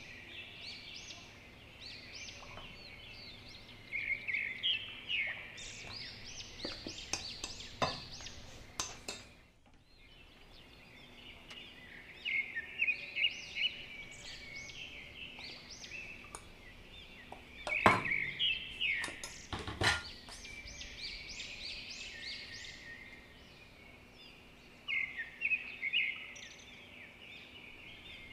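Small birds chirping in bursts of rapid, high chirps, with a few sharp clinks of a utensil against a mixing bowl; the loudest clink comes a little over halfway through.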